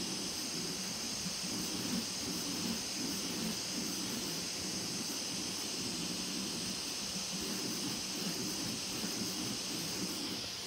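A 3D printer printing an outer wall with fuzzy skin: the stepper motors make an uneven, rapidly varying low buzz as the print head jitters, over the steady hiss of the cooling fans.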